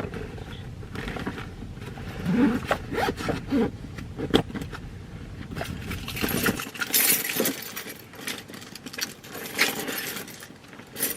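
Rummaging and putting things into a purse: rustling, scraping and small clicks of handled items, with short bursts of louder rustling. A low background rumble cuts out about two-thirds of the way through.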